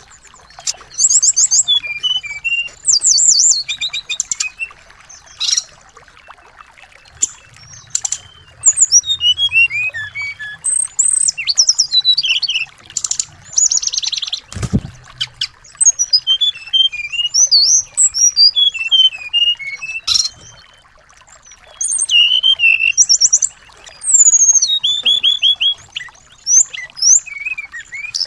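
Small songbird singing loud, rapid high chirps and trills in short bursts with brief pauses between them. A single low thump comes about halfway through.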